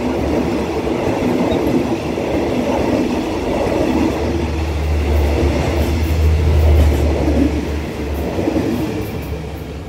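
Passenger coaches of a State Railway of Thailand special express train running past on the adjacent track, a steady loud noise of wheels on rails with a low hum beneath it. It eases off slightly near the end as the last coaches go by.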